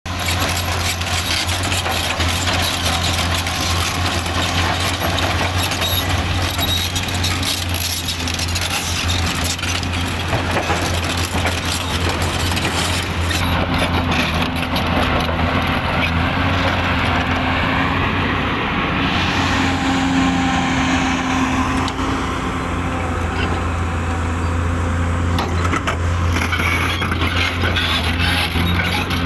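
Diesel engines of heavy earthmoving machinery, a wheel loader and an excavator, running under load: a steady low drone with dense rough noise over it.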